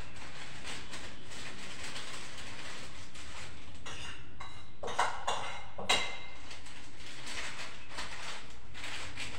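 Kitchen-counter handling noise: a plastic piping bag being rustled and filled, with two sharp clinks of utensils about five and six seconds in, over a steady hiss.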